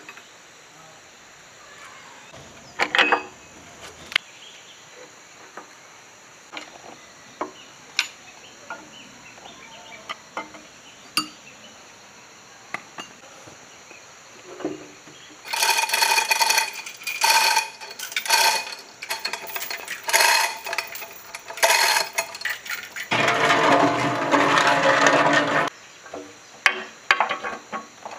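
Metal tools clinking and knocking on a bare engine block, then, a little past halfway, loud bouts of ringing metal chain clatter with one longer continuous rattle near the end as the block is hoisted, and a few more clinks after it.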